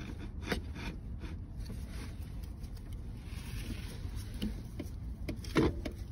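Replacement alternator being worked into its mount by hand: light scrapes and clicks of its metal housing against the engine bracket, with one louder knock about five and a half seconds in.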